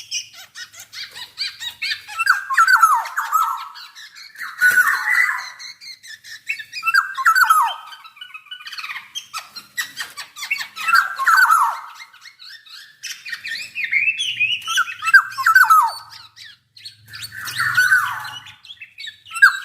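Black-naped oriole (kepodang) calling: a harsh, falling call repeated about every two seconds, with fainter high scratchy ticking between the calls.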